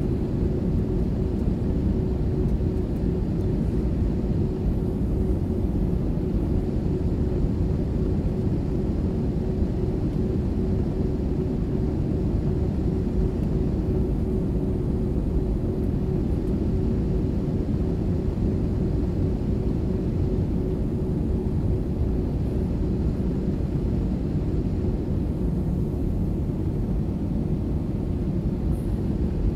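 Steady cabin noise of an Airbus A320-family airliner on approach: a low engine and airflow rumble heard from inside the cabin, with a steady hum running through it.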